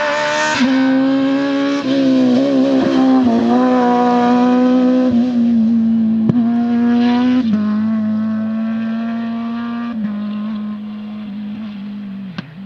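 Rally car engine at high revs, the pitch stepping with each upshift every two to three seconds as it passes and fades away. A few sharp cracks are heard, one around the middle and one near the end.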